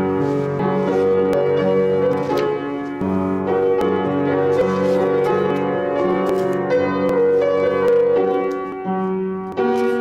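Kawai upright piano played in a slow piece of held chords, with notes changing about once a second.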